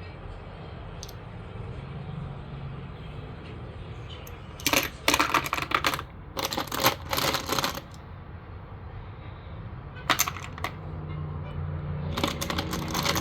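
Loose metal ammunition cartridges clinking and rattling against each other in four short bursts of rapid clicks, over a steady low hum.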